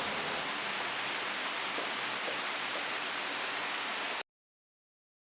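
Rain falling in a steady hiss, with a few faint drop ticks. It cuts off suddenly to dead silence about four seconds in.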